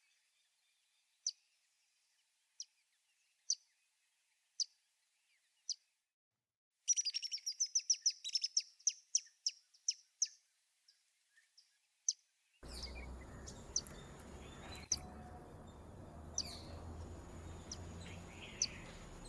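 Bird calls in several spliced clips. First, single short high chirps about once a second; then, a few seconds in, a rapid run of high notes that slows down. In the last part, a steady high buzz runs behind occasional chirps.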